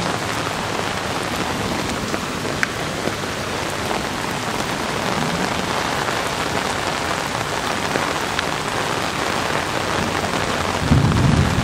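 Steady rain falling, a dense even hiss of drops, with a brief low rumble near the end.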